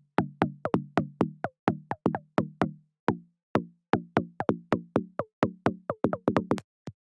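Xfer Serum software synthesizer preset playing a pattern of short percussive hits, each a sharp click with a brief low pitched tail, about three to four a second, crowding together near the end.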